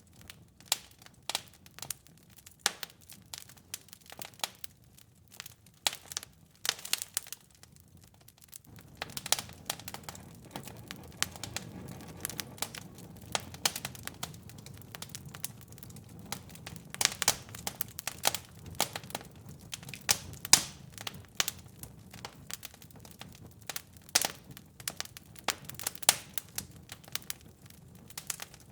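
Wood fire crackling in a fireplace: irregular sharp pops and snaps, with a low steady background of the burning fire coming in about nine seconds in.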